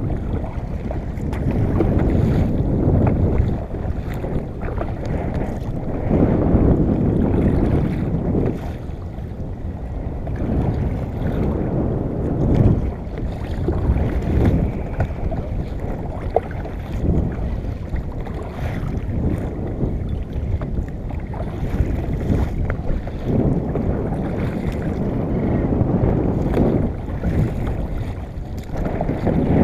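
Wind buffeting the microphone and water moving against a fishing kayak at sea: a low rumbling noise that swells and eases every few seconds.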